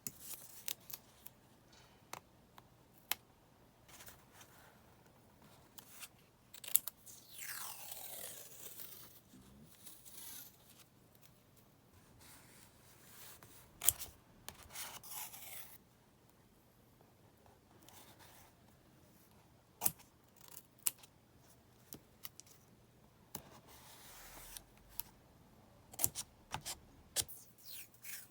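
Paper crafting sounds: adhesive stickers and tape peeled off their backing, with a long falling screech about seven seconds in. Paper rustling and scattered sharp clicks and taps come between the peels.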